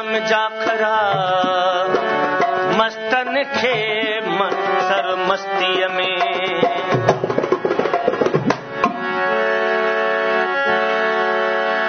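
Live Sindhi folk music: a dholak hand drum playing under a melody whose pitch slides and wavers. About nine seconds in, the drum drops out and a harmonium holds steady chords.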